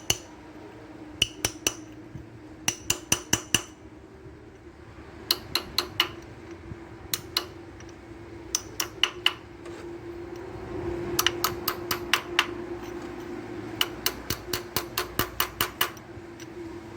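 Ratchet wrench clicking in quick runs of several clicks with short pauses between, as bolts are tightened down, over a steady hum.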